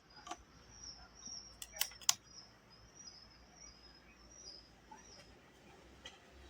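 A few sharp plastic clicks, two loud ones in quick succession about two seconds in, from pressing a camping lantern's power button. A faint, high, wavering chirping runs underneath.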